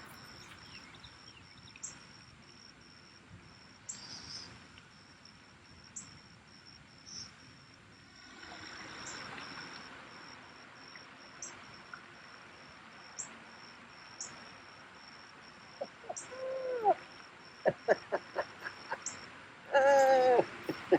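Outdoor ambience of insects: a steady high-pitched buzz with a short chirp repeating about every two seconds. In the last few seconds comes a run of sharp clicks and knocks, with a brief sliding squeak among them.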